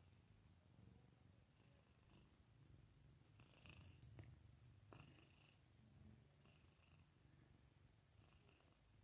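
Domestic cat purring softly and steadily, close to the microphone, with two sharp clicks about halfway through.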